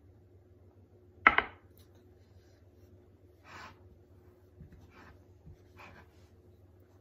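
A sharp double knock about a second in, then a wooden spoon scraping through stiff, sticky dumpling dough in a ceramic mixing bowl, three rubbing strokes as extra flour is worked in.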